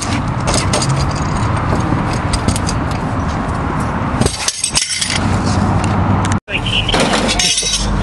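Forcible-entry irons prying and striking a steel slide bolt on a metal door: repeated metallic clinks, scrapes and knocks over a steady low hum. The sound drops out briefly about six and a half seconds in.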